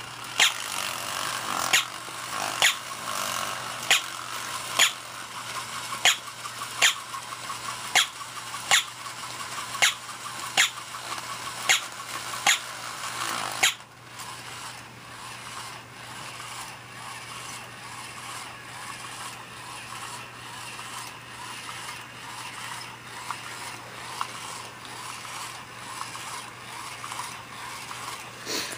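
Battery-powered walking toy dog's gear motor whirring, with a sharp click about once a second for the first half. The clicks stop about halfway through, leaving a quieter steady whir with faint ticks.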